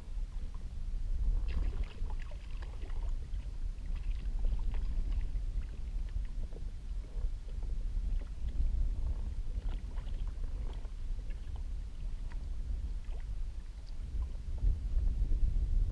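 Steady low wind rumble on the microphone, with light water lapping and small splashes against a kayak hull on choppy sea.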